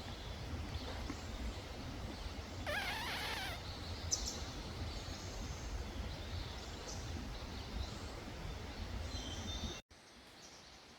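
Outdoor ambience: a steady low rumble with a short warbling animal call about three seconds in and a few faint high chirps after it. The level drops suddenly near the end.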